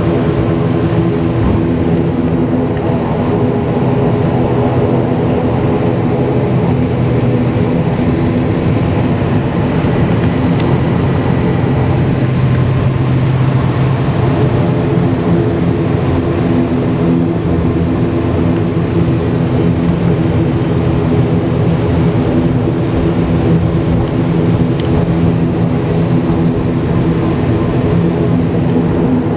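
ATR 72-500 turboprop's Pratt & Whitney PW127 engines and propellers heard from inside the cabin while taxiing: a steady drone with several even, unchanging propeller tones.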